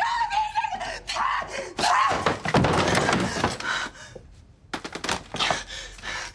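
A woman's held cry, then a loud thudding crash and scuffle lasting over a second as she is shoved against the wall and onto a chair, followed by a few lighter knocks.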